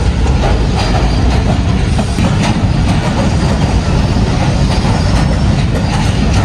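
Jaffer Express passenger train running along the track, heard from an open door or window of the moving coach: a steady loud rumble of wheels on rail, with a few faint clicks as the wheels cross rail joints.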